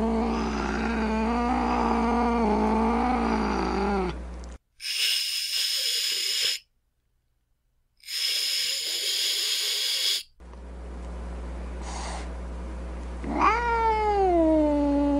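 Angry domestic cat: a long, wavering, low moaning yowl that slides down in pitch. Then come two hisses of about two seconds each, separated by a short silence. Another drawn-out yowl begins near the end.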